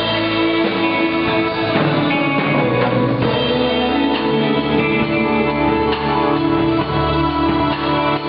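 Live band playing a passage without vocals, guitar to the fore, with a bass line coming in more strongly about halfway through.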